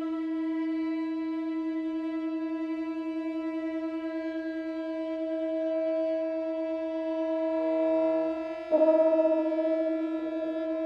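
Muted trombone holding one long, steady note that swells gently. About eight seconds in a quieter low note joins, and then the strings come in suddenly and loudly, the loudest moment, sustaining with the trombone.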